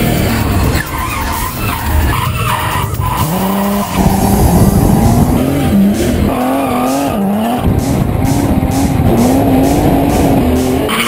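Turbocharged BMW E36 M3 straight-six engine revving hard while drifting, with tyres squealing and skidding. The revs climb sharply about four seconds in, then rise and fall as the throttle is worked. Music with a steady beat runs underneath.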